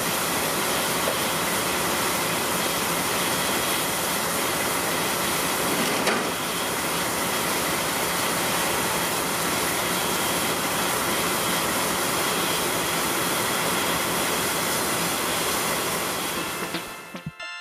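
JNR Class C58 steam locomotive standing with steam venting in a steady, loud hiss. The hiss fades out near the end.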